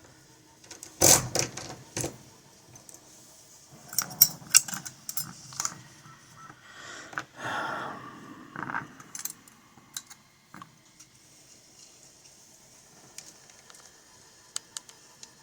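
Small metal lock parts clicking, clinking and scraping as a picked Schlage lock is taken apart. There are sharp clicks about a second in and again around four to five seconds, a stretch of scraping around seven to nine seconds, then only a few faint clicks.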